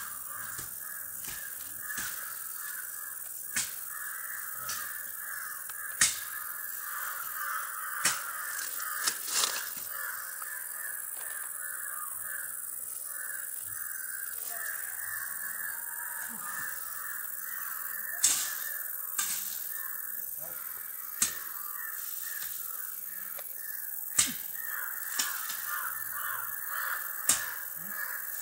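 A dense, continuous chorus of harsh animal calls, with a dozen or so sharp clicks scattered through, the loudest about six seconds in.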